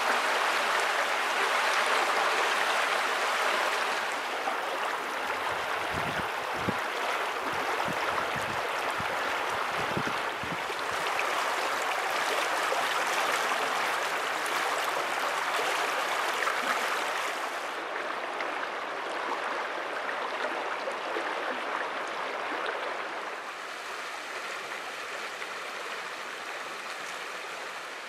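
Shallow river water rushing and babbling over stones and debris in a steady noise. It grows a little quieter for the last few seconds.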